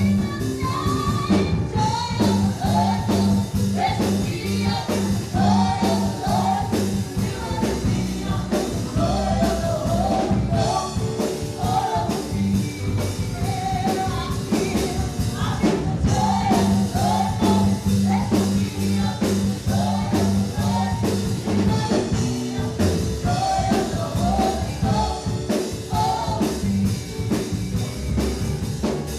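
Live gospel worship music: a band playing with a steady beat under a sung melody.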